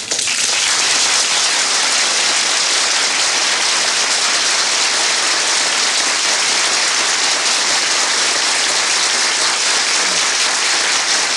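Studio audience applauding steadily, welcoming a guest who has just been announced.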